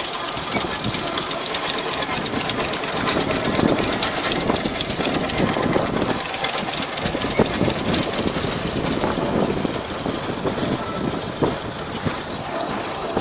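Steamroller's steam engine running, with a continuous mechanical clatter of irregular knocks and clanks.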